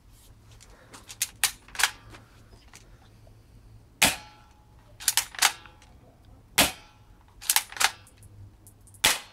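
Toy BB rifle being fired repeatedly: three sharp cracks about two and a half seconds apart, each one preceded by a quick double click.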